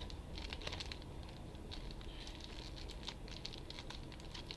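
Faint rustling and light ticks of sheets of card stock and envelopes being handled and shuffled.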